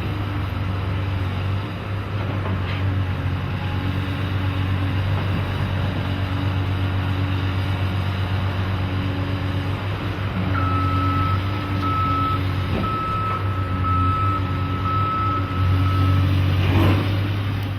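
A heavy diesel machine's engine running with a steady low drone, and a reversing alarm beeping about once a second, six times, in the second half.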